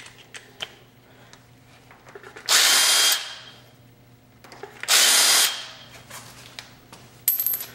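Power drill running in two short bursts of under a second each, a couple of seconds apart, turning the axle pinch bolts on a dirt bike's front fork leg; a quick run of clicks near the end.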